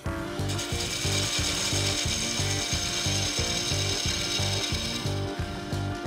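Gouge cutting into a spinning cherry burl bowl on a wood lathe, a steady hiss of shavings coming off the wood that starts just after the beginning and eases off about five seconds in. Background music with a steady beat plays underneath.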